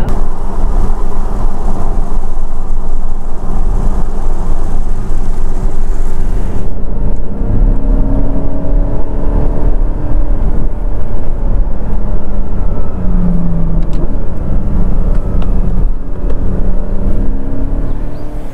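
Porsche sports car driving at road speed, heard from inside the cabin: a steady engine drone over road and tyre noise. From about seven seconds in, the engine note rises and falls gently as the speed changes.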